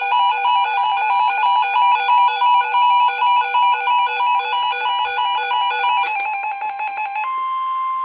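Weather radio emergency alert tones announcing an incoming severe thunderstorm warning: rapid electronic beeping that switches between two pitches, then about seven seconds in a single steady tone, the 1050 Hz warning alarm tone.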